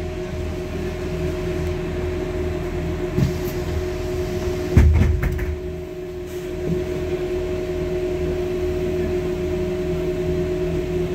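Interior sound of a Mercedes-Benz O405N2AC city bus running: a steady low hum carrying a constant whine. A single thump comes about five seconds in.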